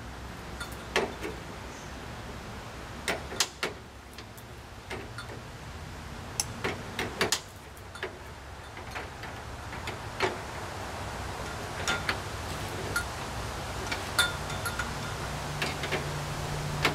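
Irregular metallic clicks and taps of a hand tool working hardware on a semi truck's metal deck plate, over a low steady hum that grows louder near the end.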